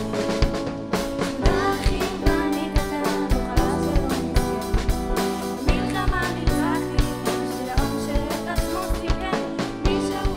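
Rock band playing live: drum kit, electric guitar, bass and piano, with a female lead singer and backing vocalist singing over a steady drum beat.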